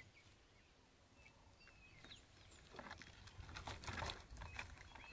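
Quiet bush ambience with a few faint bird chirps. From about three seconds in come soft, uneven scratching and rustling sounds as a lion moves at the base of a tree over dry bark and brush.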